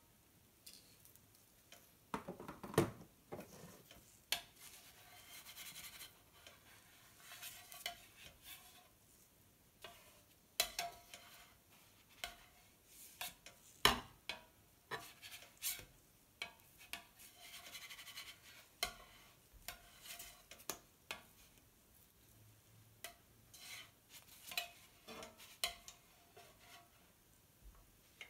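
Plastic spatula scraping and tapping against a slate serving plate as it works under a thin pancake, with irregular light clicks and knocks of utensils and plates being handled.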